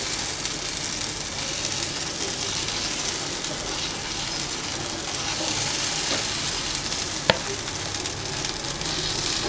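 Uttapam batter sizzling steadily on a hot oiled iron tawa as a ladle spreads it out. A single sharp click about seven seconds in.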